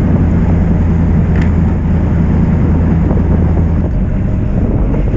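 Fishing boat engine running with a steady low drone, easing off about four seconds in, over wind and water noise.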